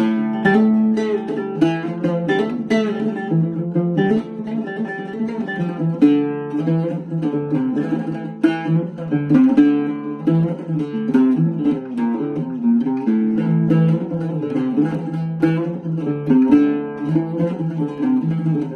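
Oud played alone in an instrumental interlude: a quick stream of plucked single notes in a flowing melody.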